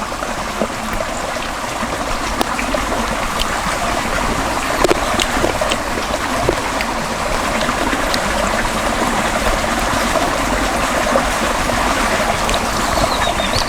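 Steady trickling, running-water noise with a few faint clicks scattered through it.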